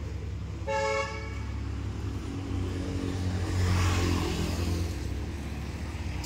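A short vehicle horn toot about a second in, then a motor vehicle's engine passing, growing louder to a peak a little past the middle and fading. Under it, a steady low engine hum.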